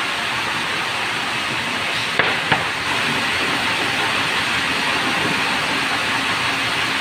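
Semi-automatic sawmill running with a steady noisy whirr and hiss, with two sharp knocks about two seconds in.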